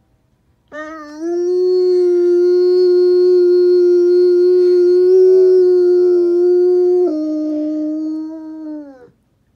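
Saint Bernard howling: one long howl held on a steady pitch, dropping to a lower note about seven seconds in and falling away near the end.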